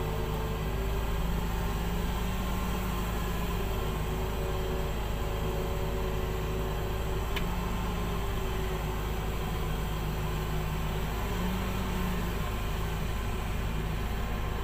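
Diesel engine of a Komatsu PC2000 hydraulic mining excavator running steadily as the machine digs and swings. Its hum rises and falls slightly in pitch with the load. A single brief click comes about seven seconds in.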